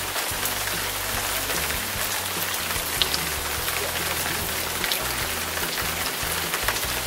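Steady rain falling on wet ground, a continuous hiss of drops, with background music and a stepping bass line underneath.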